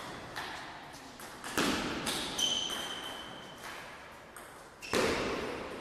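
Table tennis rally: the celluloid-plastic ball clicking off the bats and bouncing on the table, sharp hits every half second to a second that echo in the hall. Shoes squeak briefly on the floor about halfway through.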